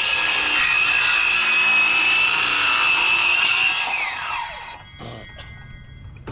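Electric power tool cutting, its motor whine holding one steady pitch with a rough cutting noise, then winding down about four seconds in.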